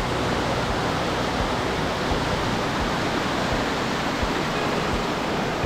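Gorton Creek's water rushing steadily over rocks.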